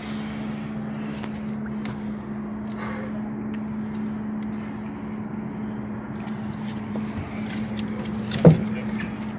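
Boat motor idling with a steady low hum, with small knocks and clicks of handling at the boat's side, and one sharp thump near the end.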